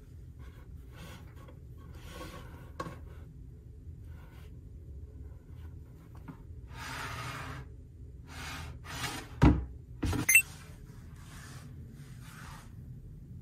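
Cloth drawstring bag holding a hair dryer rustling as it is handled on a wooden shelf, then two sharp knocks a little past the middle, the second the loudest, over a steady low room hum.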